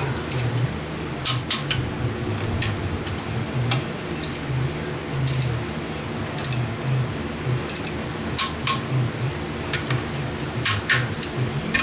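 Metal hand tools clicking and clinking against engine parts, with sharp irregular clicks every second or so over a low, steady hum.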